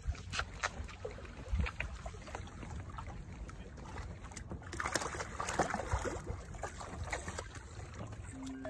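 Sea water sloshing against shoreline rocks under a low rumble, with a few knocks, then a short burst of splashing about five seconds in as a kingfish held in the water is released.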